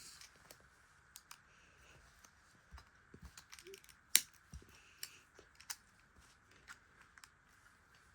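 LEGO pieces being handled and pressed together: scattered faint clicks and taps, with one sharp click about four seconds in.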